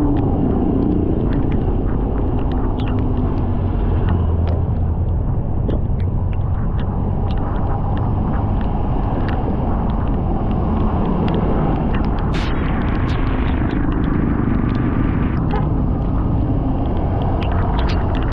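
Motorcycle engine running with steady road and wind rumble while riding in traffic, with scattered short clicks and pops of buffeting.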